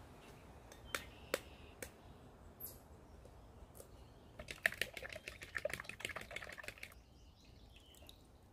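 Three sharp taps as eggs are cracked, then a couple of seconds of rapid clicking from a fork whisking eggs in a plastic bowl for an egg wash.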